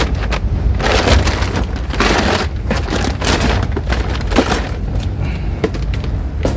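Rummaging through a bin of rubbish: irregular clatters, knocks and rustling as items are pulled about, with two longer stretches of rustling about one and two seconds in, over a steady low rumble.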